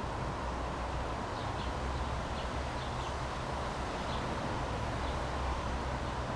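Outdoor background: a steady low rumble with faint, short bird chirps scattered through.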